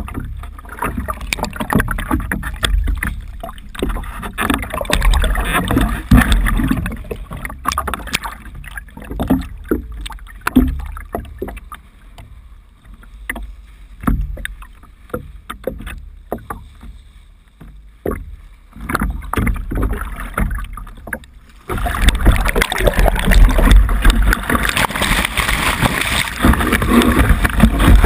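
Kitesurfing board and water heard on a camera mounted close to the rider: irregular splashes and knocks of water against board and camera, with gusts of wind. About 22 seconds in the sound changes suddenly to a continuous loud rush of spray and wind as the board rides through the water.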